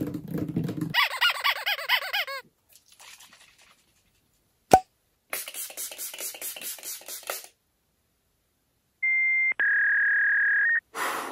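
A fine-mist spray bottle hisses in quick repeated pumps for about two seconds, around the middle. Before it come a short run of warbling chirps and a single sharp click. Near the end a steady electronic beep tone sounds for close to two seconds.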